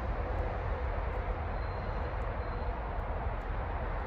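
Train passing very slowly, a steady low rumble.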